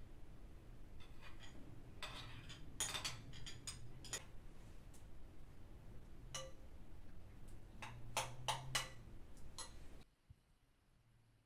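Light clinks and knocks of china dishes, a spoon and small spice jars being handled and set down, scattered irregularly over a low steady hum. The sound drops away abruptly about ten seconds in.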